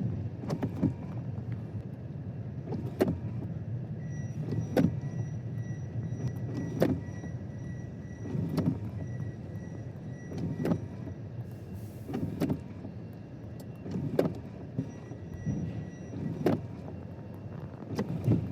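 Truck windshield wipers sweeping in heavy rain, knocking at the end of each stroke about every two seconds, over a steady low rumble from inside the cab.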